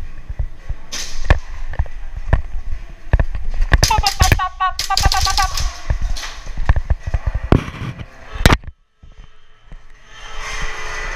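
Irregular sharp pops and knocks of an airsoft gas-pistol exchange: shots and BBs striking the arena's board walls, with a person shouting briefly about four seconds in.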